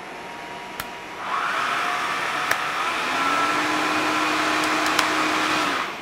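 Bosch Athlet BCH86SILGB 28-volt cordless vacuum cleaner running, switched up through its suction levels with clicks of the handle button. It runs at the quiet first, suction-only level, then gets louder about a second in as level 2 brings in the brush roller and more suction. It gets louder again with a steady hum at about three seconds on the turbo setting, then switches off near the end and winds down.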